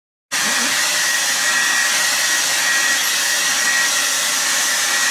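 Handheld electric hair dryer blowing steadily: an even rush of air with a thin, steady whine, coming in abruptly just after the start.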